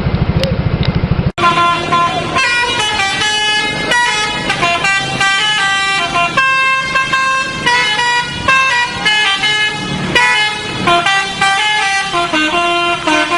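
An engine idling with a fast low throb for about the first second, then a bus's 'telolet' musical air horn playing a long tune of stepped notes, several tones sounding at once.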